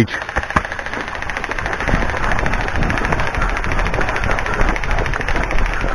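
Airsoft gun firing one long full-auto burst, a rapid even rattle of shots, laying down suppressing fire on cover.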